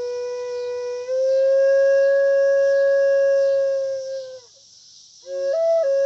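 Wooden double flute playing slow held notes: a low note that steps up slightly about a second in and is held for over three seconds, then a brief pause for breath and a few short notes near the end.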